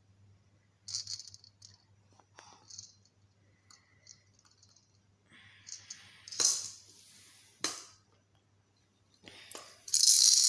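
A plastic baby rattle shaken and knocked about in short, irregular bursts of rattling and clicking, with louder shakes about six and a half seconds in and again near the end.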